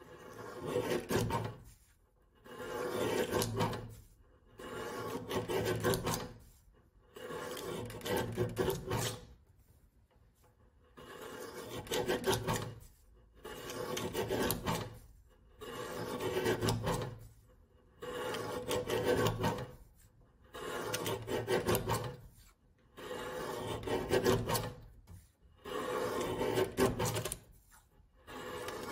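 Lever guillotine paper cutter shearing through a stack of paper sheets, a rasping cut roughly every two seconds, each lasting a second or so.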